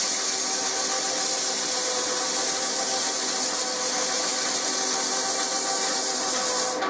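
Abrasive cloth held against a shaft turning in a metal lathe, a steady rasping hiss as the rust and grease are cleaned off, with the lathe's running hum underneath.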